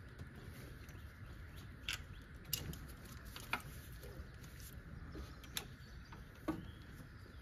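Scattered sharp clicks and taps of hand tools on metal as a stuck coolant hose is worked at on its fitting, over a low steady background rumble.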